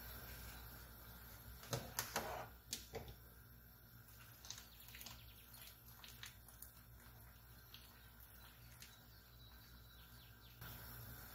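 Faint room tone with a low steady hum. About two seconds in comes a quick run of four or five sharp clicks or knocks, then fainter scattered ticks.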